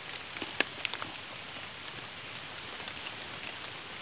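Steady patter of rain, with a few sharp ticks in the first second.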